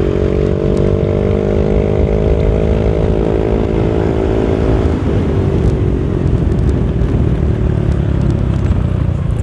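Yamaha Aerox scooter's single-cylinder engine pulling hard through an aftermarket R9 exhaust, its note holding a nearly steady pitch as the CVT keeps the revs up. From about five seconds in the engine note fades under a steady rushing noise of wind and road.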